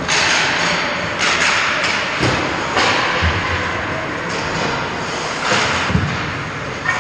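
Ice hockey skates scraping and carving the ice close by, in repeated short hissing strokes, with sticks and the puck clacking and a couple of dull thuds about three and six seconds in.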